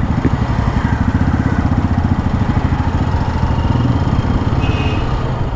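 Hero Xpulse 200's single-cylinder engine running steadily at low speed in slow city traffic, heard from the rider's seat. A brief high-pitched beep, like a horn from other traffic, sounds near the end.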